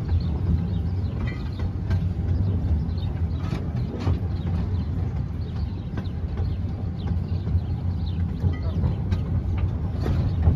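Small-gauge train rolling along its track, heard from the locomotive's tender: a steady low rumble with irregular sharp clicks and clanks from the running gear.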